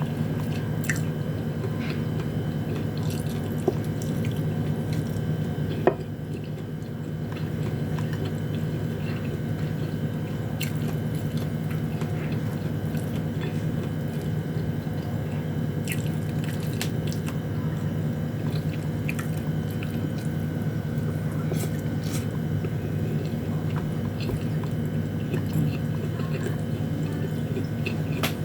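Chewing and small wet mouth sounds of someone eating sardines and rice, scattered clicks over a steady background hum.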